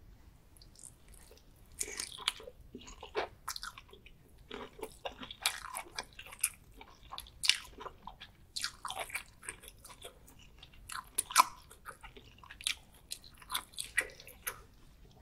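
Close-miked mouth sounds of biting and chewing garlic butter prawns: irregular wet clicks and smacks that begin about two seconds in.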